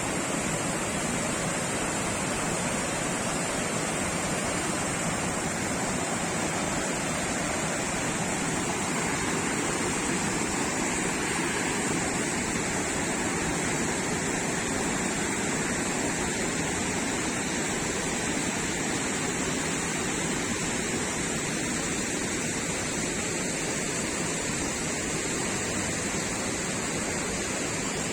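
Cuparé River water rushing steadily, a continuous even noise without a break.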